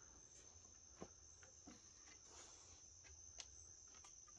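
Near silence: faint, steady high-pitched chirring of crickets, with two faint sharp clicks, about a second in and near the end.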